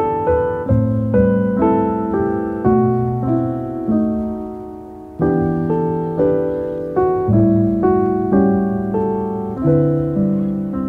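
Background piano music: a slow melody of single notes and chords, each struck and left to fade.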